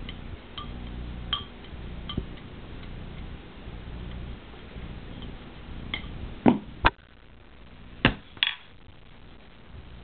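Wooden drumstick clicking and knocking during stick-spinning practice: a few light clicks, then four sharp, louder knocks in two close pairs past the middle.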